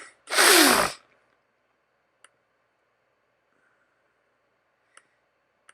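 A short, loud breathy rush of air near the start, followed by three faint single computer mouse clicks spaced a second or more apart.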